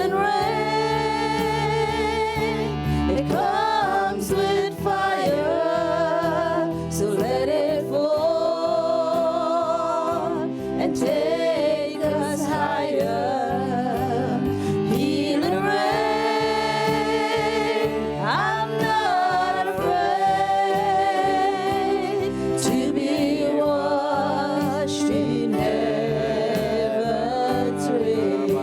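Gospel worship song: a singer holds long, wavering notes over sustained keyboard chords and a steady beat.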